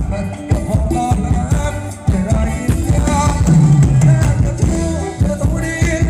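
Band playing Thai ramwong dance music: a steady drum-kit beat under a sung melody.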